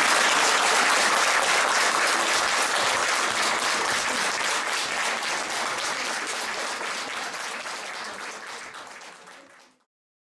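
Audience applause, dense steady clapping from many hands that fades out gradually over the last few seconds and stops about a second before the end.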